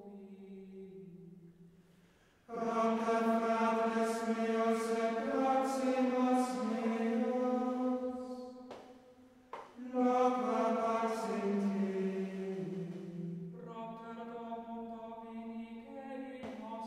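Slow sung music, chant-like with long held notes that step from pitch to pitch. It fades low and comes back in suddenly about two and a half seconds in, and breaks off briefly with a click around nine seconds.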